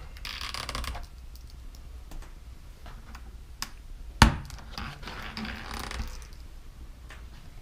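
Small plastic clicks and rustling from handling an instrument cluster as gauge needles are pressed down and twisted off their stepper motors. One sharp click stands out a little past halfway.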